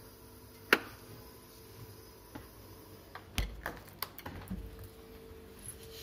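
A few sharp clicks and knocks, one loud one about a second in and a quick cluster around the middle, over a faint steady hum.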